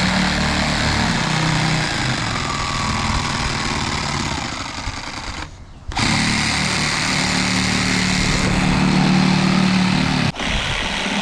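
Electric jigsaw cutting plywood sheet, running loud and steady. It stops briefly about five and a half seconds in, starts again, and stops once more near the end.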